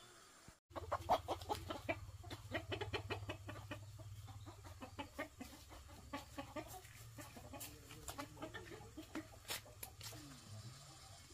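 Chickens clucking: a run of rapid short clucks starting about half a second in and thinning out near the end, over a steady low hum.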